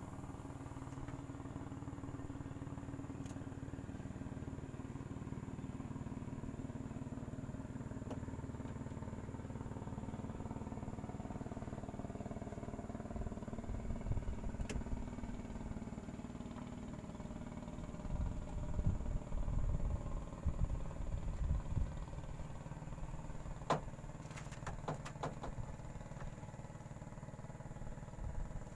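A small boat engine running steadily at low revs, with uneven low thumps and rumbles about halfway through and again in the second half, and a few sharp clicks near the end.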